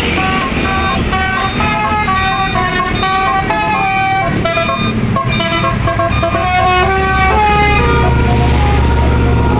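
Bus telolet basuri musical horn playing a quick tune of stepped notes, over the low rumble of a bus engine. The tune stops about three-quarters of the way in, while the engine rumble grows louder as the bus passes.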